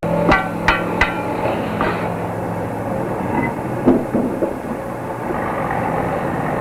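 Heavy machinery running with a steady low drone, while metal clanks and rings three times in the first second, again near two seconds in, and knocks faintly around four seconds in.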